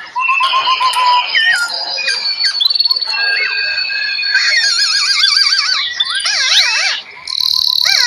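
Several songbirds singing at once: overlapping clear whistles, fast trills and wavering warbles, with a brief lull about seven seconds in.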